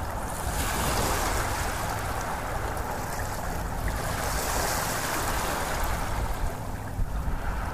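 Rushing noise of water, swelling and easing back every couple of seconds.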